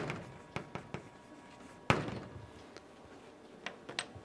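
Chalk tapping on a blackboard as writing ends, then one loud knock about two seconds in, and a few light clicks near the end.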